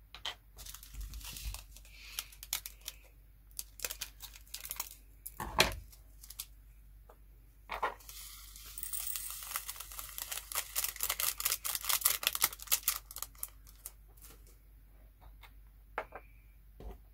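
Small plastic jars clicking and tapping as they are handled, with a sharp knock about five and a half seconds in. Then for about five seconds a dense run of tiny clicks and hiss as resin diamond-painting drills are poured from a small plastic bag through a plastic funnel into a jar, tailing off into a few scattered clicks.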